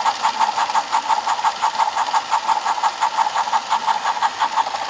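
Battery-operated Thomas & Friends toy playset running, with its Harold the helicopter making a rhythmic whirring, about seven pulses a second.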